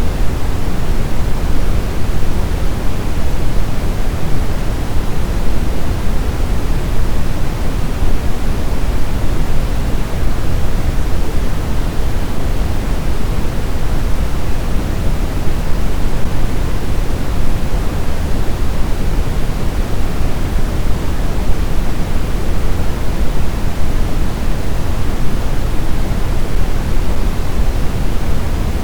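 Steady white-noise sleep sound: an even, unchanging hiss weighted toward the low end, like pink noise.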